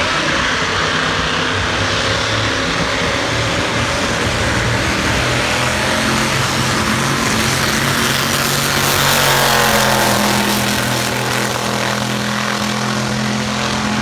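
A backhoe racing down a drag strip at speed: a loud, continuous engine and rushing noise with a steady low hum, growing loudest about nine to ten seconds in as it passes by.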